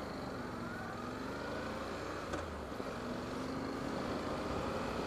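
Honda NC700X motorcycle's parallel-twin engine pulling away and accelerating, its note rising in pitch twice as it goes up through the gears, under steady wind and road noise.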